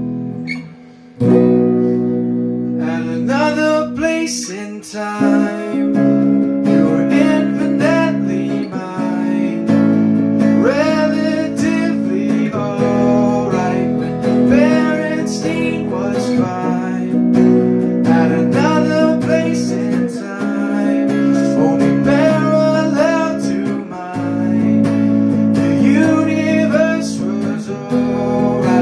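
Acoustic guitar strummed in changing chords, with a voice singing over it; the playing breaks off briefly about a second in, then resumes.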